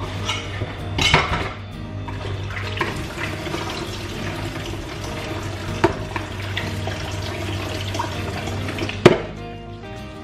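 Kitchen tap running into a plastic basin and a pot as hands rinse pieces of beef tripe, with a few knocks of a pot against the steel sink, the sharpest about nine seconds in. Background music plays underneath.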